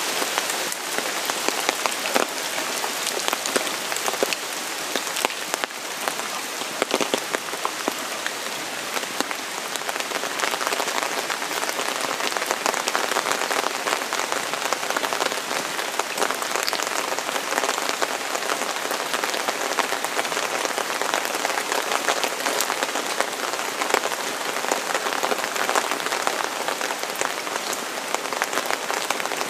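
Rain falling steadily, a dense patter of countless small drop impacts at an even level.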